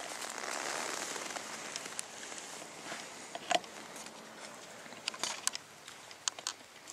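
Dry leaves rustling and crackling. The rustle is fuller in the first couple of seconds, then gives way to scattered sharp crackles, with one louder click about three and a half seconds in.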